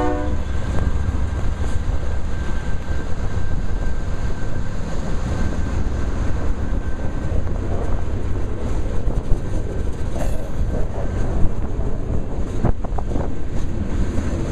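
Freight train of tank cars rolling past close by: a steady rumble and clatter of steel wheels on rail, with a few sharper clacks near the end. The lead locomotive's horn cuts off at the very start, and wind buffets the microphone.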